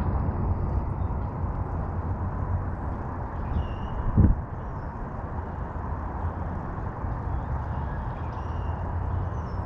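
Steady low outdoor rumble with faint bird chirps, and one short low thump about four seconds in.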